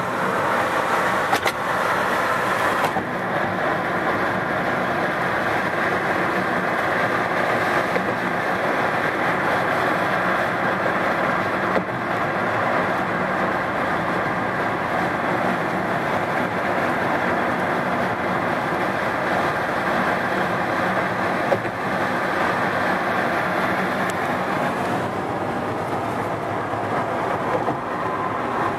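Steady road noise inside a moving car's cabin: tyres and engine rushing evenly at freeway speed, with a few brief bumps.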